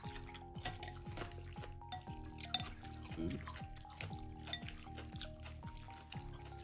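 Background music with a steady beat, under close eating sounds: short clicks of utensils against a bowl and wet slurping of noodle soup.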